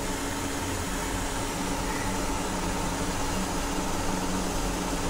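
Steady hiss of a gas stove burner on medium flame heating a covered idli steamer, with a faint steady hum underneath.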